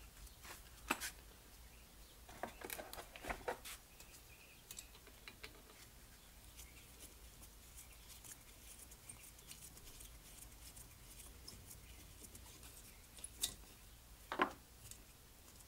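Light clicks and clinks of small metal parts of a Holley 1920 one-barrel carburetor being handled and fitted during reassembly: one about a second in, a short cluster a few seconds in, and two more near the end.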